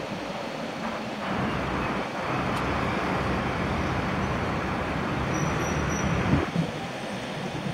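City street traffic noise heard from a moving bicycle: a steady rush of vehicles and tyres that gets louder about a second in, with a van close ahead.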